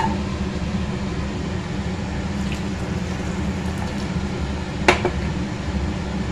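Water bubbling as it comes to the boil around rice and peas in a kadai, over a steady low hum. A short sharp tap about five seconds in is the loudest sound.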